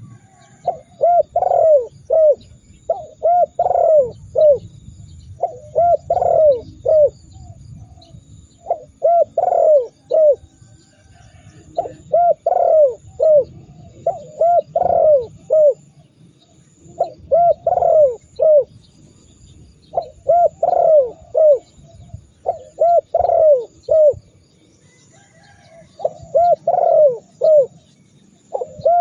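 Spotted dove (tekukur) cooing over and over: phrases of three or four low, arched coos, a new phrase every two to three seconds.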